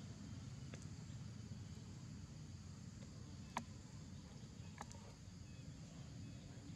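Faint outdoor ambience: a thin, steady high insect drone over a low rumble, broken by three sharp clicks, the loudest about three and a half seconds in.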